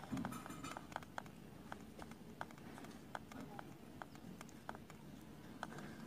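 Nestling bird being hand-fed an insect: a brief sound right at the start, then faint short ticks, about three a second at uneven spacing.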